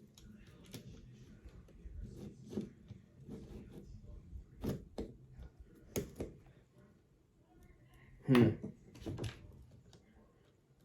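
Scattered light clicks and taps of a Magpul M-LOK bipod and its mounting screws being handled and fitted against an AR-15 handguard, with a short vocal sound about eight seconds in.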